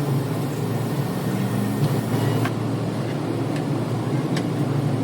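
Car running with a steady low engine and road noise, with a few faint ticks about two and a half, three and a half and four and a half seconds in.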